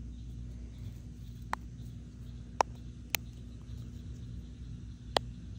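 Four sharp clicks, spaced unevenly, from the buttons of a small plastic push-button fidget toy being pressed. A steady low hum runs underneath.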